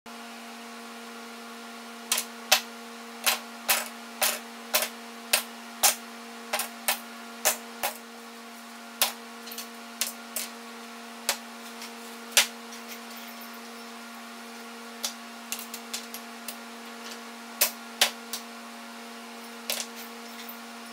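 A steady electrical hum under a string of sharp, irregular clicks and knocks, some in quick pairs, coming thick for the first dozen seconds and more sparsely after.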